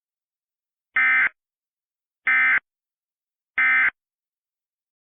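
Emergency Alert System (EAS) end-of-message data bursts: three short, identical buzzing bursts of SAME digital tones, about a second and a half apart, marking the end of the alert.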